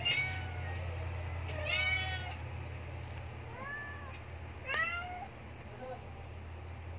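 Kittens mewing: about four short, high-pitched mews, each rising then falling in pitch, over a steady low hum.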